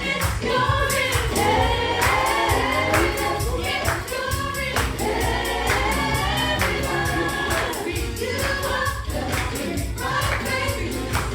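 Choir singing gospel music over a steady beat with percussion.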